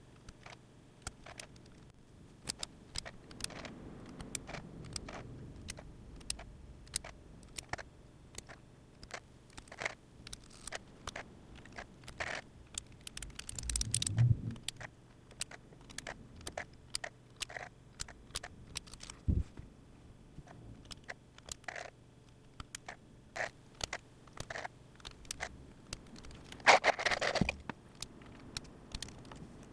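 Irregular clicks and taps of a Keychron Q6 mechanical keyboard and its parts being handled and pressed, with two brief louder scraping rustles, one about halfway through and one near the end.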